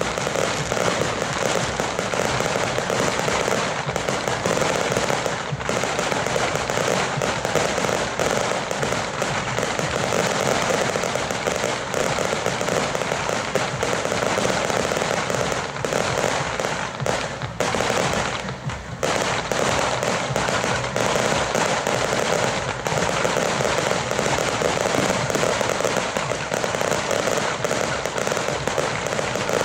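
Fireworks set off at ground level going off in a dense, continuous barrage of rapid bangs and crackling. It eases briefly about two-thirds of the way through.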